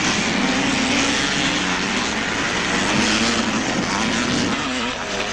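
Vintage 250 cc two-stroke motocross bikes racing, their engines revving up and down through a turn.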